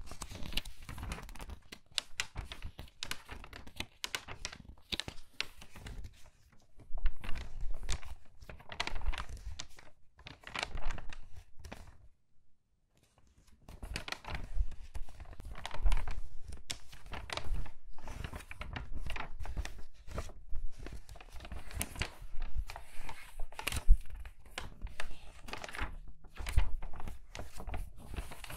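Crinkly magazine pages turned quickly one after another, a dense run of paper crinkling and rustling with sharp crackles. There is a brief pause a little before the middle.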